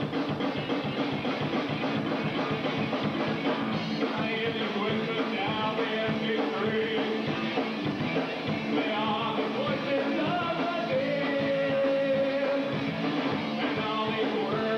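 Live alternative rock band playing with drum kit and guitars, a melody line coming in about four seconds in. Heard on an old VHS recording, dull in the top end.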